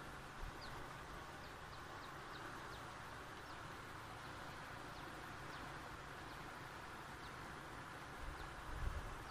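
Faint rural outdoor ambience over flooded fields: a steady hiss with scattered short, high downward chirps, and low rumbling buffets on the microphone near the end.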